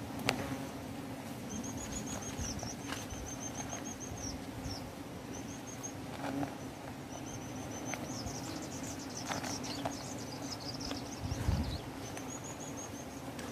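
Wasps buzzing steadily around a dug-open ground nest, while leaves and twigs rustle and click as hands work through them, louder once near the end. A high, rapid chirping trill comes and goes several times over the top.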